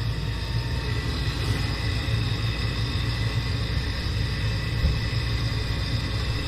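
Gas furnace draft inducer motor running steadily during the start-up sequence, a constant low rumble with a faint steady whine above it.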